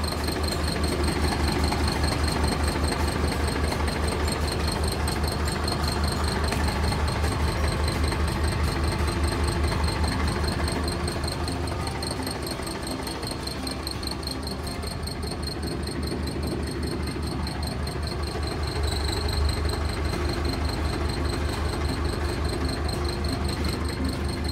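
Hino Ranger truck's diesel engine idling, a steady low pulse that eases a little in the middle.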